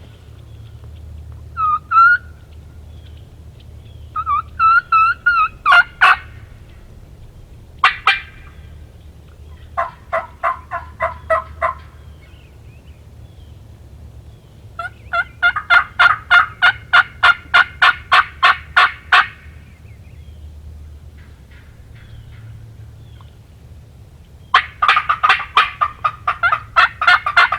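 Wild turkey yelping in series of sharp, evenly spaced notes at about four a second. A few short yelps come first, then a long run of about eighteen notes midway and another fast run near the end.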